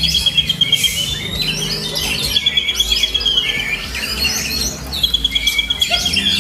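Oriental magpie-robin (kacer) singing a continuous, varied song of whistles and chatter, with a rapid even trill that comes three times, over a low steady hum.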